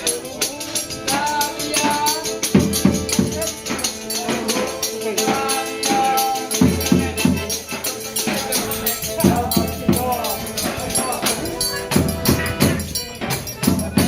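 Forró pé de serra band playing: accordion holding steady chords over a regular low drum beat and a continuous rattling, shaker-like percussion.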